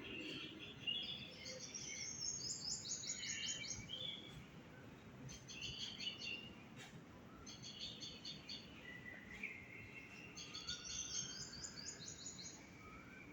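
Several birds chirping: bursts of rapid, high, repeated chirps coming every few seconds, with lower whistled notes between them, over a steady low background noise.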